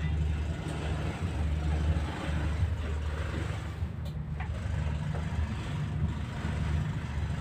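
Car ferry's diesel engines running steadily underway, a low drone heard inside the wheelhouse, with a broad rushing noise above it.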